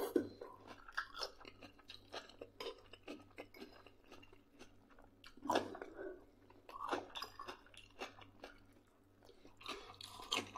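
A man chewing a mouthful of boiled potato, sausage and salad close to the microphone: quiet wet chewing and small mouth clicks, with a few louder bursts of chewing.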